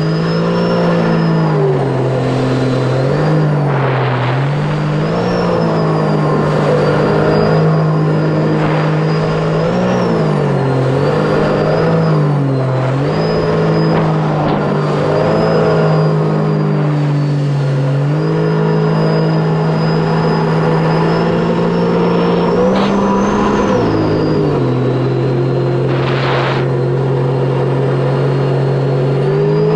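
Sea-Doo RXP-X 300's supercharged three-cylinder Rotax engine running hard at speed. A high whine rises and falls with the engine. The engine pitch dips briefly and climbs back several times as the throttle eases and reopens, with a few short splashes of spray.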